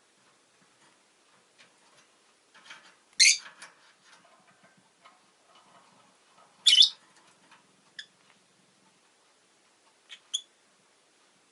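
Rosy-faced lovebird calling: two loud, high-pitched chirps a few seconds apart, then a few short, fainter chirps near the end.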